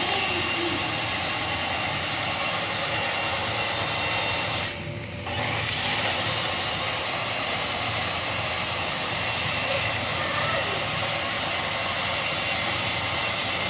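Remote-control toy tractor running: a steady whirring drive with no break except a short drop about five seconds in.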